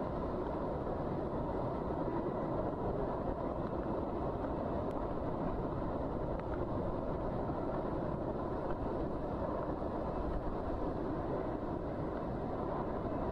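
Cyclone wind and heavy rain: a steady, even rush of noise with no breaks.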